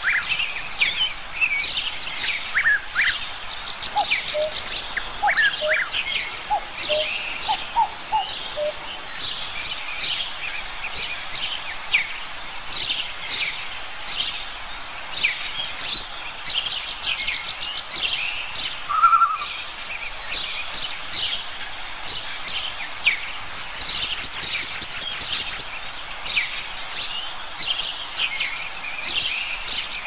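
Many songbirds chirping and singing at once, short calls overlapping throughout, with a few lower whistled notes early and a fast, very high-pitched trill of about ten strokes a second lasting a couple of seconds about three-quarters of the way through.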